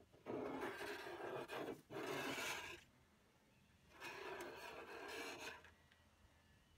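A steel putty knife scraping wrinkled, softened old paint off a flat metal panel, in three long rasping strokes: two close together at the start and one about four seconds in.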